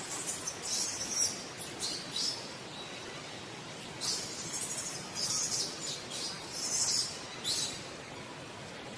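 Birds chirping in short, high-pitched bursts, in two clusters with a pause of about a second and a half between them.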